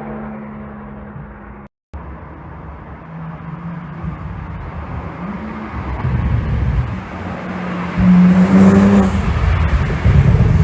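Porsche 911 Turbo S (992) twin-turbo flat-six, running on an ECU tune made for exhaust pops. It runs steadily at first, the sound breaks off briefly just before two seconds in, then the engine builds and is revved loudest over the last three seconds.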